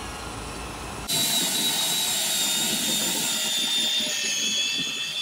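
Cordless drill driving a boat trailer winch through a Sea Socket adapter, winching the boat up onto the trailer. It starts abruptly about a second in and runs steadily with a high whine that drops slightly in pitch as it goes.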